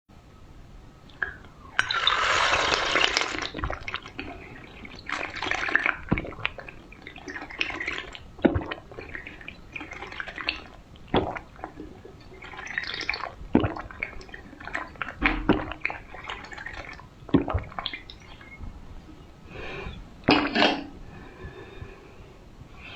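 Close-miked drinking from a glass: a loud rush of liquid lasting about a second and a half, about two seconds in, then a string of short sips, gulps and clicks.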